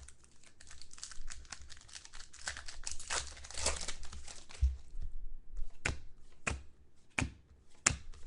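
A foil trading-card pack crinkling and tearing as it is ripped open, followed by a string of separate sharp clicks a few seconds in.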